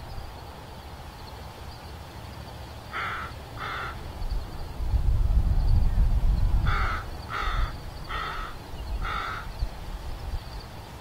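A bird giving short calls, two about three seconds in and then four more roughly half a second to a second apart. A low rumble swells in the middle.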